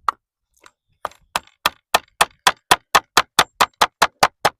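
Hammer driving a nail into old timber: a few spaced taps, then a fast, steady run of about four blows a second.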